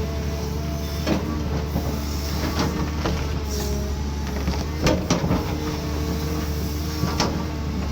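Cat 320D2 hydraulic excavator working: its diesel engine runs with a steady low hum under a whine that shifts in pitch. Sharp knocks come every second or two, the loudest about five seconds in.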